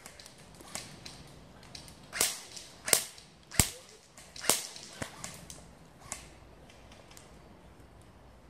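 Airsoft guns firing a string of sharp single shots at an irregular pace. About eight cracks fall in the first six seconds, the loudest four between about two and four and a half seconds in.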